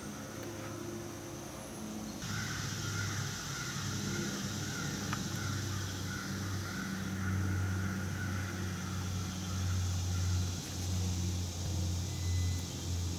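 Steady outdoor background noise: a continuous low rumble with a hiss over it that rises about two seconds in.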